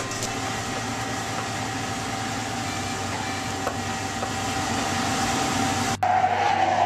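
Steady background hum of a commercial kitchen with a faint steady tone for about six seconds. Then, after a sudden cut, an espresso machine's steam wand hisses loudly while it steams milk in a metal pitcher.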